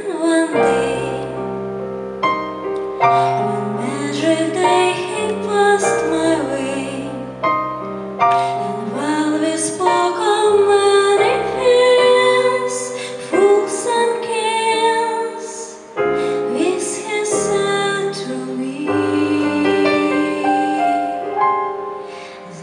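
A woman singing solo into a microphone over piano accompaniment with sustained bass notes, her voice sliding between held notes.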